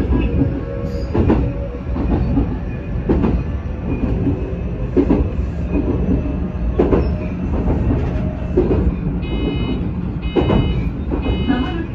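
Shizuoka Railway commuter train running, heard from on board: a steady rumble with a sharp wheel click over the rails about every two seconds. A repeated high ringing tone comes and goes from about nine seconds in.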